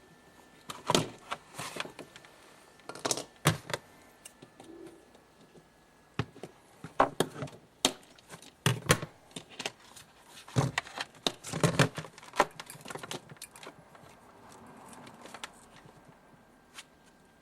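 Irregular clicks, knocks and clatter of parts and tools being handled while working on a refrigerator, in clusters with short pauses between them.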